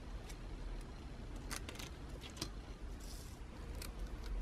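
A few faint, light clicks and taps of small metal parts being handled as the iron's heating element is fitted onto the soleplate studs, over a low steady hum.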